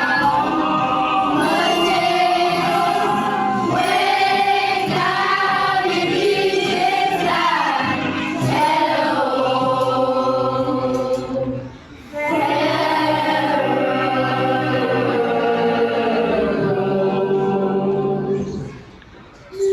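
A children's choir singing, with long held notes. The singing breaks off briefly about twelve seconds in and again near the end.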